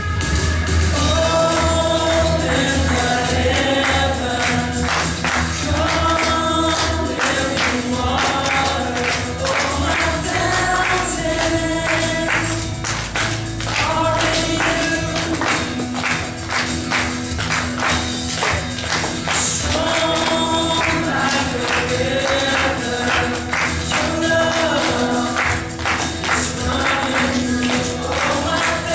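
Congregation and singers at the front singing a worship song together, with instrumental accompaniment and a steady percussion beat.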